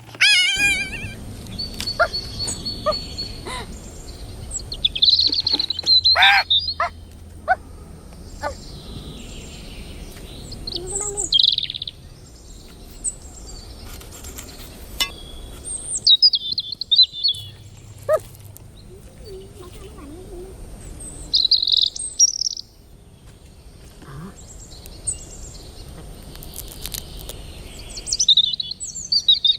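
Birds chirping and calling in short whistled phrases and trills, with several sharp knocks or clicks in between.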